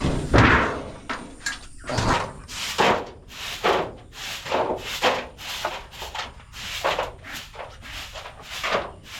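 Broom sweeping in a steady run of short, scratchy strokes, roughly one and a half strokes a second.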